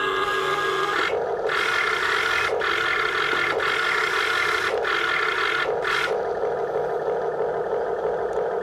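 Small electric motors of an RC backhoe whirring steadily, with a higher whine cutting in and out several times between about one and six seconds in.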